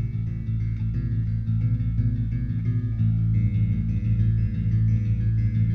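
Instrumental background music with guitar over a low bass line, the notes changing about three seconds in.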